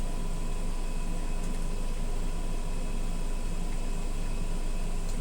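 Steady mechanical hum and hiss with a faint high tone, unchanging throughout; no lighter clicks or strikes stand out.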